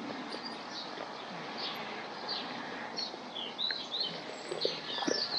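Small birds chirping over a steady outdoor hiss: many short high chirps, with a quick run of them a little after the middle. A few soft knocks near the end.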